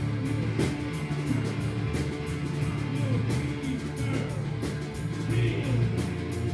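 Live rock band playing, electric guitar to the fore over steady bass notes and regular drum hits.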